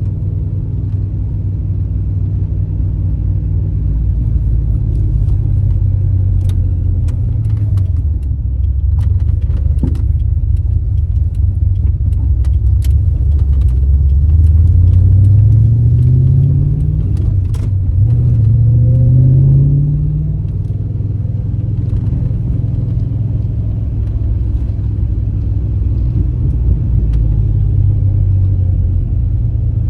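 Holden 5.0-litre 304 V8 of a 1995 VS SS Commodore running under way. Its pitch climbs about halfway through, drops back, climbs again shortly after, then settles to a steady run.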